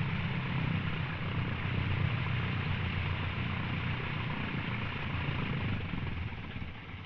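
Single-engine light airplane's piston engine and propeller running steadily on the ground at low power, easing off near the end as the engine is shut down.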